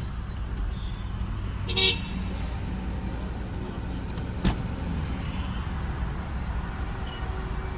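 Diesel car driving on the road: steady low engine and tyre rumble, with a short horn toot a little under two seconds in and a single sharp knock a little after the middle.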